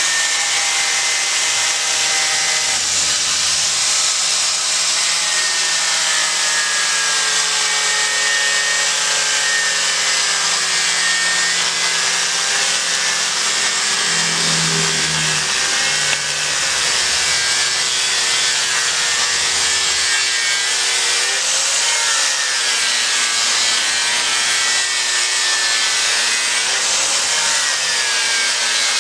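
Electric angle grinder with an abrasive disc grinding a monkeypod wood carving blank: a continuous rasping hiss over the motor's whine, which wavers in pitch as the disc is pressed into the wood and eased off.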